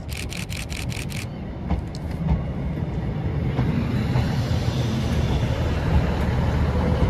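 Two-unit Class 156 Sprinter diesel multiple unit arriving along the platform: its underfloor diesel engines and wheels on the rails rumble louder as the coaches run past. A quick run of six short, sharp high ticks sounds in the first second.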